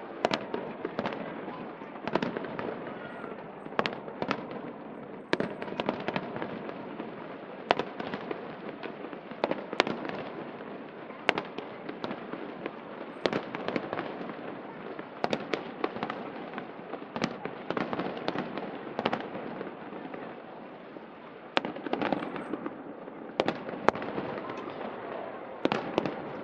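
Fireworks show heard from the riverbank: a continuous crackle and rumble of bursting shells, with many sharp bangs at irregular intervals.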